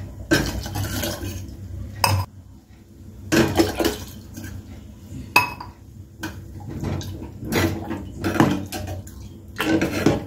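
Metal ladle scraping and knocking against the sides of an aluminium pot as sago-vermicelli payasam is stirred, in irregular clatters. Milk is poured into the pot near the start.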